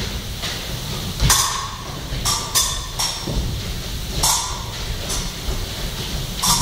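Fencing blades clashing several times, each a sharp metallic strike with a short ring, mixed with thuds of fencers' footwork on the piste.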